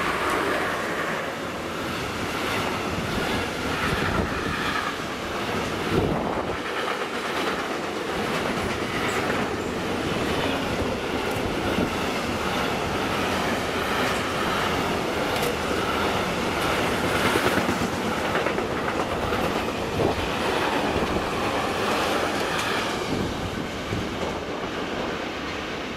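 Intermodal freight train passing close, led by a Siemens Vectron class 193 electric locomotive: a long string of wagons carrying truck trailers rolls by in a steady rush, with occasional knocks from the wheels. The noise eases near the end as the last wagon passes.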